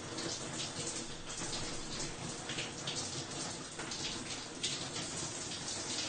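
A shower running: a steady hiss of water spray with uneven splashing.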